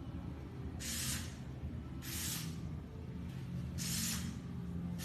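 Three short bursts of hiss, each about half a second long and a second or so apart.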